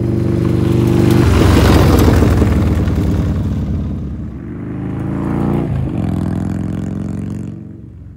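1990 Harley-Davidson FLH's Evolution V-twin running as the motorcycle rides past, loudest about two seconds in, then falling away. It picks up again after a cut, drops out briefly near six seconds, then fades as the bike rides off.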